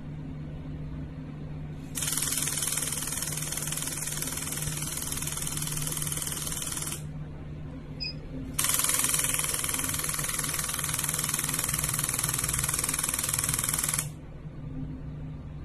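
Em Sculpt B609C electromagnetic muscle-stimulation machine running a treatment. Its applicators fire in two rapid buzzing pulse trains of about five seconds each, with a pause of a second or two between them, over a steady low hum from the unit.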